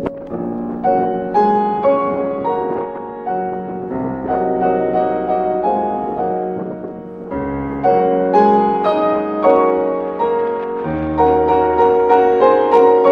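Instrumental background music led by piano, playing a gentle melody over low bass notes that come and go.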